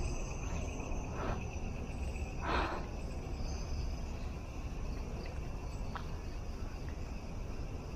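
Steady chorus of crickets and other night insects, a continuous high-pitched trilling. Two brief soft rustling noises come about a second in and again about two and a half seconds in.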